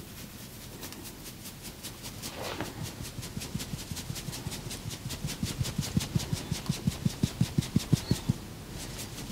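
Rapid rhythmic percussive massage strokes, hands striking the body about five or six times a second. The strokes grow louder and stop near the end.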